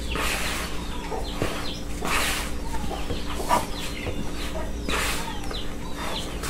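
Chickens clucking now and then, over a steady low hum.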